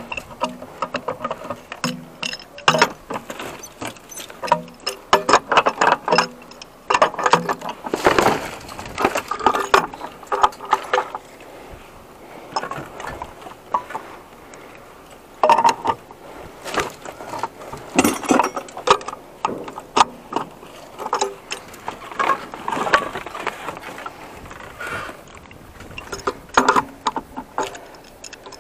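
Metal wrench clinking, scraping and clicking against metal fittings on a scrapped water heater as they are worked loose, in irregular bursts, with pieces of broken drywall knocking and shifting.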